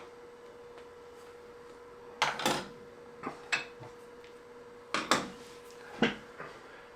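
A box casing being lifted and fitted back onto a device: a handful of knocks and scraping clatters, loudest about two seconds in and again around five seconds in.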